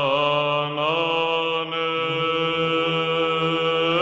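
Intro music: a long held chanting voice over a steady low drone, its note sliding to a new pitch about a second in.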